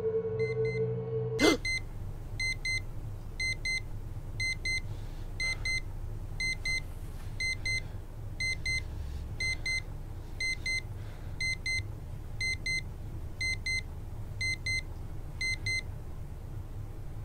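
Electronic alarm beeping: short high beeps in quick groups, repeating steadily for about fourteen seconds and then stopping. It starts right after a loud rising swoosh about a second and a half in.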